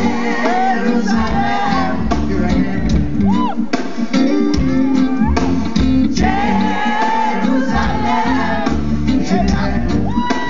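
Live reggae band playing, with electric guitars and drum kit, and a male lead singer at times.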